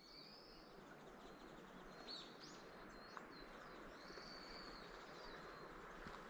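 Small wild birds calling faintly: several high, thin chirps and whistles over a soft steady hiss.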